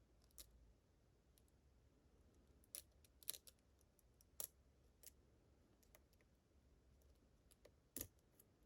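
A handful of faint, sharp metallic clicks, spaced irregularly, as a lock pick probes the pins of a challenge lock.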